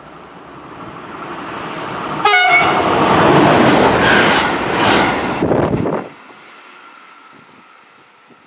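Double-deck electric multiple unit running through a station at speed: a rising rush as it approaches, a short horn blast about two seconds in, then a loud rush as it passes. The noise drops off sharply about six seconds in as the last car goes by, leaving a fading rumble.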